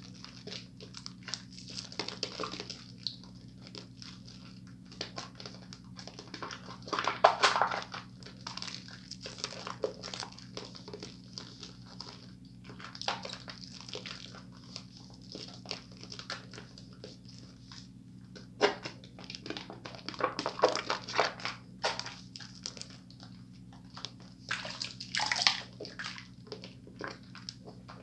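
Hands squeezing and rubbing thick soap lather, wet squelching and bubble crackle in irregular bursts, with a few louder squishes. A steady low hum runs underneath.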